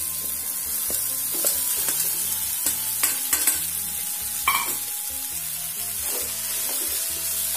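Vegetables sizzling in a nonstick pan as poha (flattened rice) is tipped in and stirred with a wooden spatula. There are a few sharp knocks and scrapes of the spatula against the pan in the first half.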